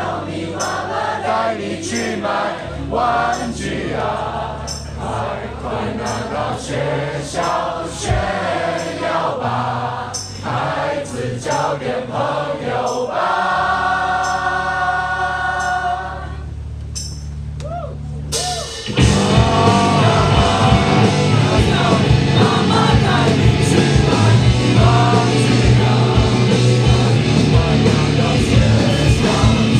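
Rock band playing live with singing: voices over bass and a beat, a held chord, a short quieter break, then about two-thirds in the full band comes in much louder with drums and guitars.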